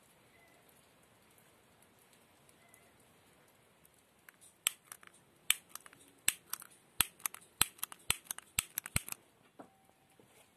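A quick, irregular run of sharp clicks and snaps, two to four a second, starting after about four seconds of near quiet and stopping about a second before the end.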